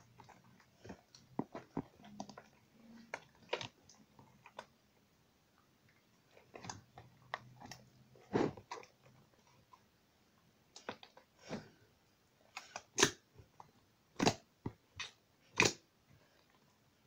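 A large batch of thick slime being kneaded and pressed by hand in a plastic box: irregular sticky pops, clicks and squelches, with a few louder pops in the second half.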